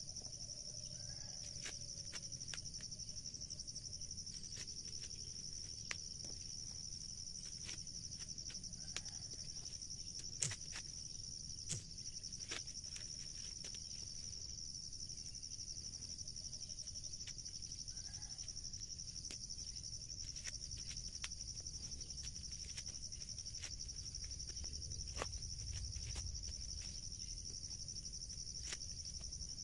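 A steady high insect drone, with scattered crackles and snaps of dry corn husks being torn from the ears by hand. Two louder snaps come around the middle.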